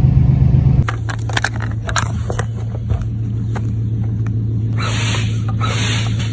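An idling engine for under a second. Then clicks as a pump hose is fitted to an inflatable raft's valve, followed by a tall hand pump pushing air into the raft in two whooshing strokes near the end.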